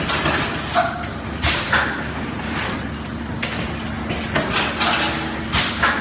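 Two-cavity PET stretch blow molding machine running: a string of short hisses of compressed air and sharp mechanical clacks as its pneumatic cylinders and molds cycle, over a steady hum.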